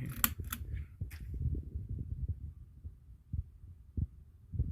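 Handling noise: a few light clicks in the first second, then low muffled bumps and rumble.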